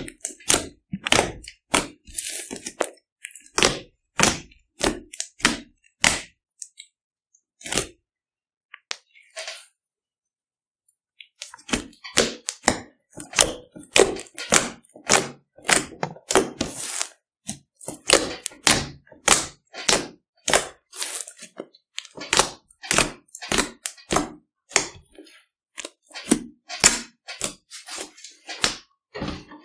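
Fingers poking, pressing and pulling at fluffy slime, with kinetic sand mixed in, making rapid, irregular sticky pops and crackles as trapped air pockets burst. The popping stops for about three seconds around a third of the way in, then starts again, denser.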